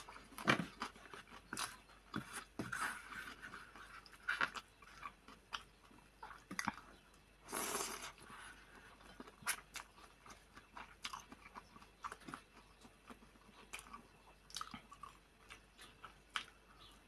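Close-up eating sounds of a person eating instant noodles: chewing, with many short wet mouth clicks and smacks, and a noisy slurp of noodles about halfway through.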